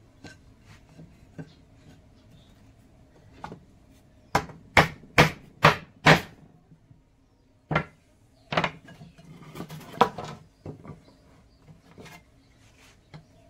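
Wood being struck during woodworking: scattered light taps, then a quick run of five loud knocks about half a second apart in the middle, followed by a few more single knocks.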